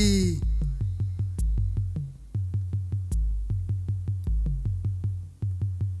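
Electronic background music with a drum-machine beat: a fast, steady ticking rhythm over a low bass line that changes note about once a second.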